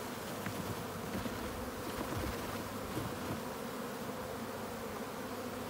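Honeybees buzzing around an opened hive in a steady hum, a colony stirred up as the leftover bees are shaken out of the nuc box.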